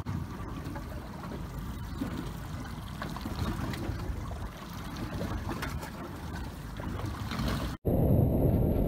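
Choppy sea water sloshing and splashing around a small boat. About eight seconds in, it cuts abruptly to a louder, steady low rumble with a thin high whine.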